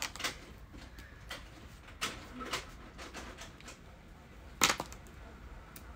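Scattered light clicks and taps of dot-marker pens being handled on a desk: caps pulled off and snapped back on, and pen tips dabbed on paper. A louder click comes late on.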